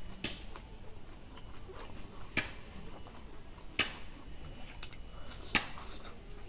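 Close-up eating sounds: a man chewing a mouthful of rice and curry with his mouth open, with about five sharp mouth clicks spread through.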